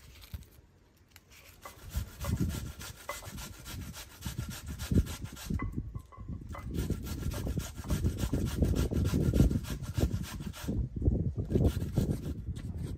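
Red onion being grated on a stainless steel box grater, in quick repeated rasping strokes that start about a second and a half in.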